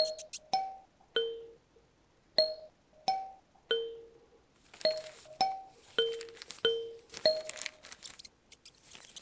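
Kalimba playing a slow melody of single plucked notes, roughly two a second, each ringing and fading. A soft rustling joins from about halfway.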